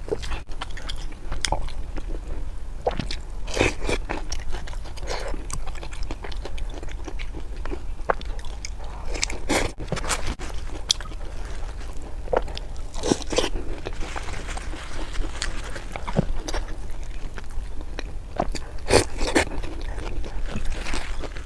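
Close-miked eating: irregular crunches and chewing as food is bitten and chewed.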